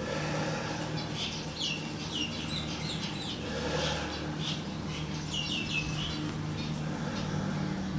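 Small birds chirping in repeated quick runs of high, downward-sliding notes.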